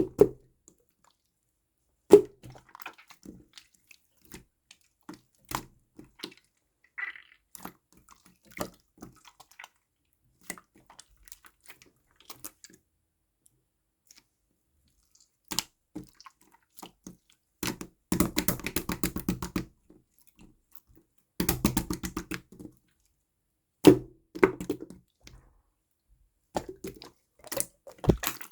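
Clear slime being squeezed and pressed by hand, making scattered sticky clicks and small pops. In the second half come two short runs of fast crackling, like trapped air bubbles popping as it is squished.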